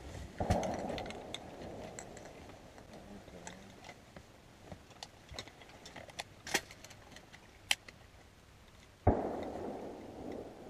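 Two shotgun blasts, one about half a second in and another near the end, each followed by a rumbling echo that fades over a second or two. Light sharp clicks and ticks come in between.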